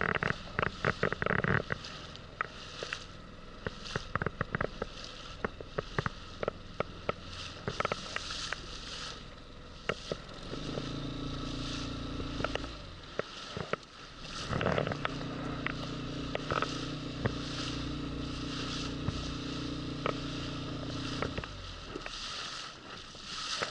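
A small boat motor runs with a steady hum, briefly about ten seconds in and then again for about six seconds from about fifteen seconds in, as the boat gets under way. Scattered sharp clicks and knocks come and go throughout.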